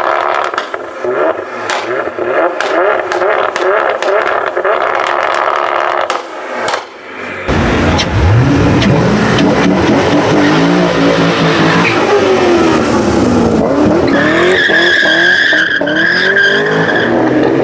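Nissan GT-R revving in quick repeated blips, its exhaust crackling and popping. After a cut about seven seconds in, a Corvette C6 Z06's V8 runs hard as the car pulls away with wheelspin, and the tyres set up a steady high squeal near the end.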